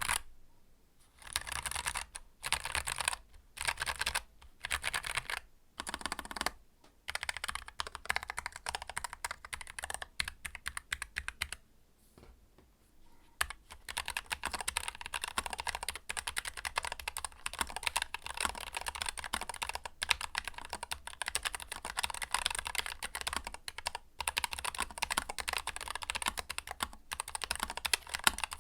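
Typing on a Keychron K3 Pro low-profile mechanical keyboard. At first it comes in short bursts of keystrokes with brief pauses, then as fast continuous clatter that stops for about two seconds midway before resuming.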